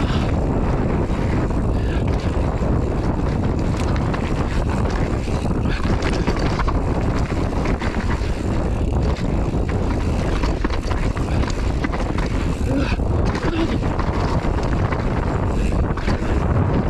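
Mountain bike rolling fast over a dirt and gravel trail: a steady rumble of tyres on the ground with constant small rattles and clicks from the bike, and wind buffeting the microphone.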